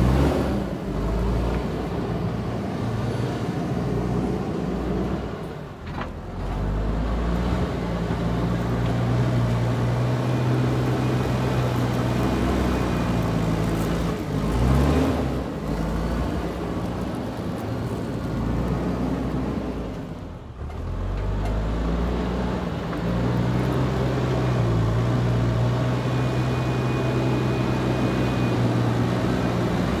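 JCB backhoe loader's diesel engine working under load as it pushes and levels dirt with its front bucket. The engine note rises and falls, with two brief dips in level, about six seconds and about twenty seconds in.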